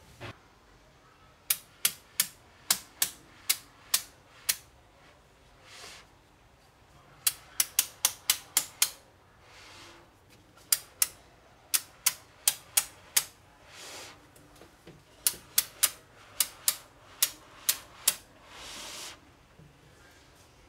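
Small magnetic-ball cubes clicking sharply as they snap together into rows, in four quick runs of clicks, with soft sliding scrapes in the pauses between the runs.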